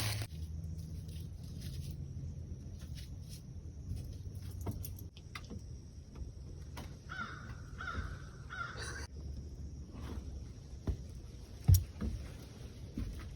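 A crow cawing three times in quick succession, over a steady low hum, with a few light knocks and one sharp knock near the end.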